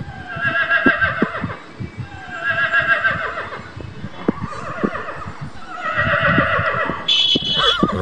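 Horses whinnying: three long whinnies, each about a second, with a wavering pitch, then a shorter, higher squeal near the end.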